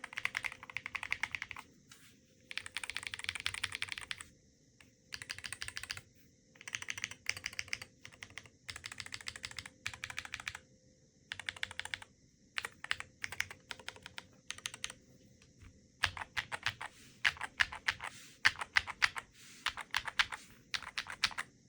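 Typing on a Chilkey ND75 LP mechanical keyboard with low-profile linear switches and low-profile keycaps: fast runs of keystrokes broken by short pauses, giving way in the last third to slower, louder separate strokes.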